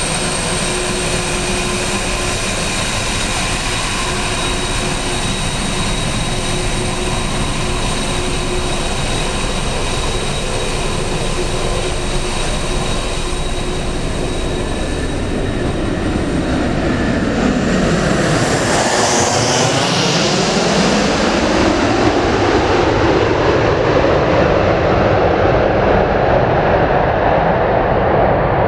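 Boeing 767 twin turbofan engines running at high power as the jet rolls away down the runway: a steady jet noise with a thin high whine that fades out. About two-thirds of the way through, a louder jet rumble with a sweeping, phasing sound takes over as another airliner comes in to land.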